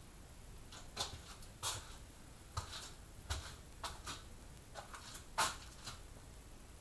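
A string of light clicks and taps, about ten of them at uneven intervals, from something small being handled by hand.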